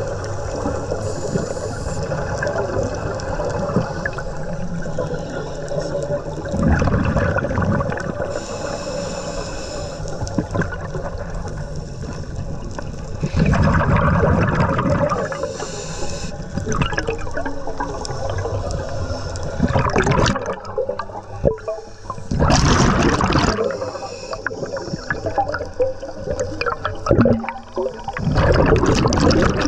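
Underwater sound of a scuba diver breathing through a regulator. Exhaled bubbles gurgle out in louder bursts every six to seven seconds over a steady hum and hiss.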